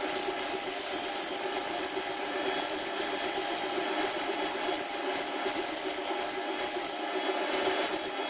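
Dremel rotary tool on a flexible shaft grinding the face of a ring spinning in the lathe: a steady high whine over a rough grinding noise that wavers in level. The setup flexes and vibrates, giving a poor surface finish.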